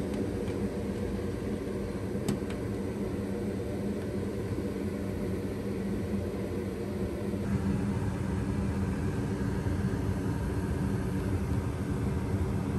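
Newly installed Goodman MES80 gas furnace running in heat mode: a steady hum and rumble from its blower with airflow through the ductwork. There is a light click about two seconds in, and the tone shifts about seven and a half seconds in.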